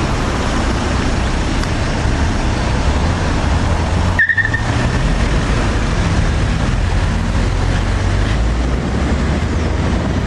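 Car engine and road noise heard from inside a car driving in city traffic, pulling away after waiting at a light. About four seconds in, the sound drops out for a moment and a short high squeak follows.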